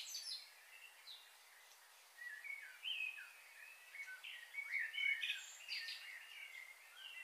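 Small birds chirping and calling repeatedly, short high notes that rise and fall, over a faint steady hiss, with a few brief crackles.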